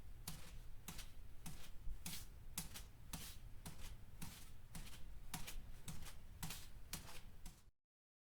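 Footsteps walking at a steady pace, about two crisp steps a second, stopping abruptly near the end.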